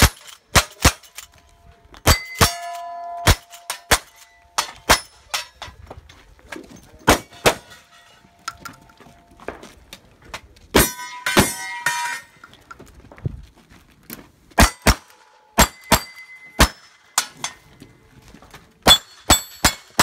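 A fast string of gunshots at steel targets, each hit followed by the steel plates clanging and ringing. The shots come in irregular bursts with two short pauses as the shooter moves between positions.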